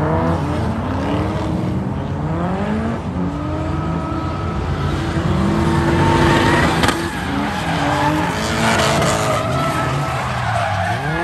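Several drift cars sliding together in a tandem: overlapping engine notes repeatedly rising and falling as the throttles are worked, over tires screeching on the asphalt. The loudest stretch comes just past the middle.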